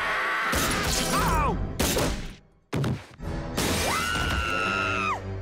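Glass window shattering over dramatic music, followed by a long, steady high-pitched scream from a man falling that cuts off near the end.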